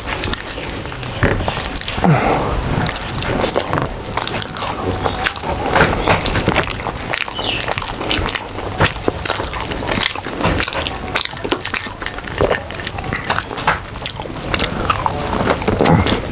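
Close-miked eating sounds from people eating a khichuri meal: steady chewing with many small wet clicks and lip smacks.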